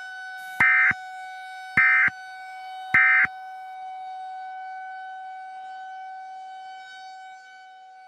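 Three short, loud warbling data bursts about a second apart, the EAS/SAME end-of-message code that closes an emergency alert broadcast. Under them a steady droning tone with overtones carries on and fades out near the end.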